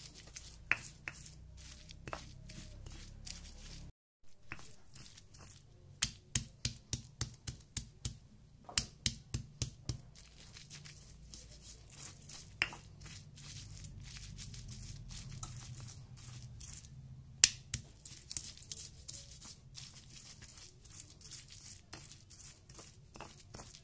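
Stone pestle grinding wet chili paste in a stone mortar (cobek and ulekan): squelching, crushing strokes with sharp clicks of stone on stone. The clicks come in a quick regular run of about three a second in the middle.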